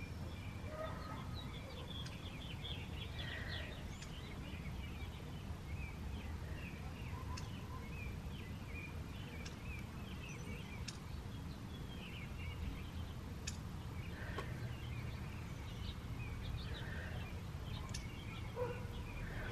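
Outdoor ambience: a steady low rumble with small birds chirping faintly and rapidly in the background, and a few light clicks.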